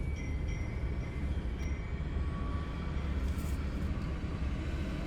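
Strong wind rushing and buffeting, a steady low rumble with a few faint thin high tones over it.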